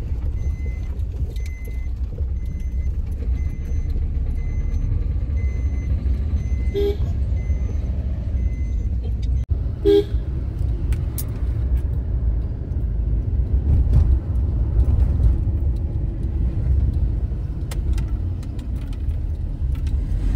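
Car ride heard from inside the cabin: a steady low rumble of engine and road noise, with two short car horn toots, one about seven seconds in and a louder one about ten seconds in. A faint regular beeping repeats through the first half.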